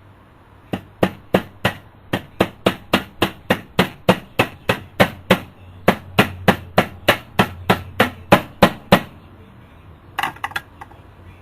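A small hammer taps in an even, quick rhythm, about three to four sharp strikes a second for some eight seconds, then a short burst of lighter taps near the end.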